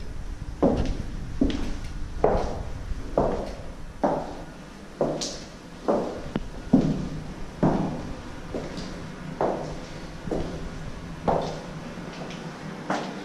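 Footsteps walking at a steady pace on a hard floor, about one step every second, each step echoing off bare walls.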